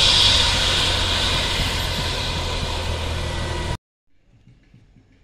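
Helicopter engine running: a loud, steady rush of noise with a fixed whine over it, easing slightly and then cutting off abruptly about four seconds in, after which only faint outdoor sound remains.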